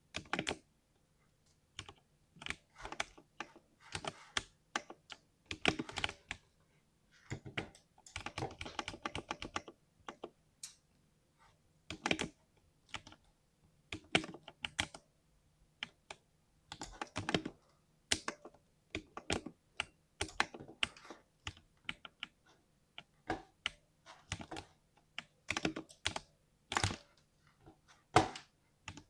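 Typing on a 60% mechanical keyboard, key presses with a deep thock coming in irregular runs separated by short pauses, with a fast burst of keystrokes about a third of the way through.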